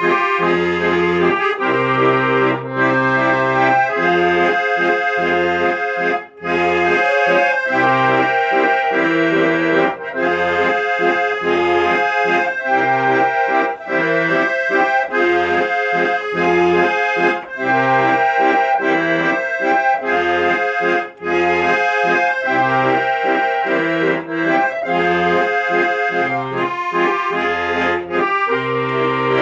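Accordion playing an instrumental melody over a steady, evenly pulsing bass-and-chord accompaniment.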